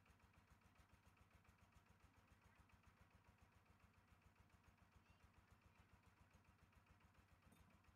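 Faint engine running steadily at an even pulsing beat, several beats a second, with no change in speed.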